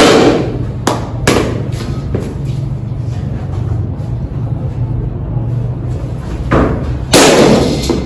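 Cricket balls thudding in an indoor practice net. A loud thud comes at the start, a few lighter knocks follow in the first two seconds, and two more loud thuds come near the end, each with a short echo. A steady low hum runs underneath.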